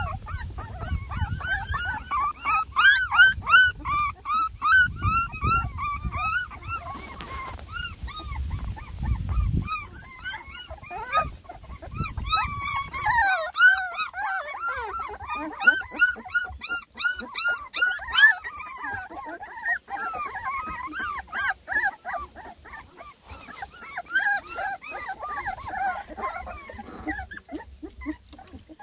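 A litter of three-and-a-half-week-old beagle puppies whining and whimpering together, many short high cries overlapping. A low rumble runs under the first half and stops about thirteen seconds in.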